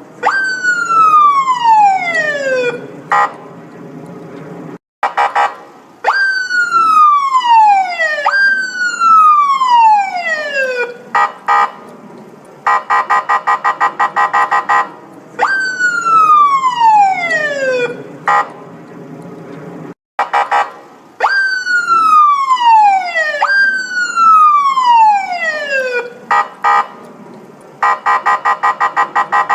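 Police siren sound effect. Stretches of fast, rapidly pulsing tone alternate with long falling glides, each jumping up quickly and then sliding down over about two seconds. The sequence repeats about every 15 seconds.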